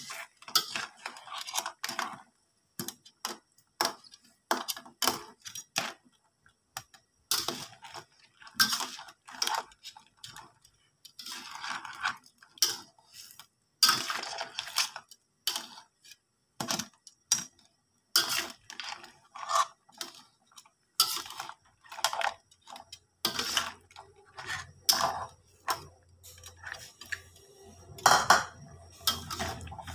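Metal spatula clinking and scraping against a steel wok as crabs in an egg-thickened sauce are stirred, in irregular knocks about one or two a second.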